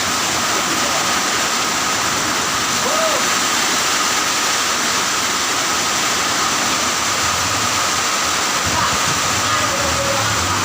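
Steady downpour of heavy rain, an even rushing hiss with no thunder. A low engine-like hum comes in near the end.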